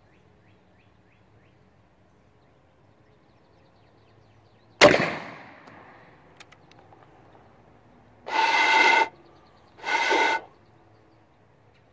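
Cut-down percussion-cap muzzleloader firing a single black-powder shot about five seconds in, with a short ringing tail. Then two steady, hollow hoots, the second shorter, as the barrel is blown down after the shot.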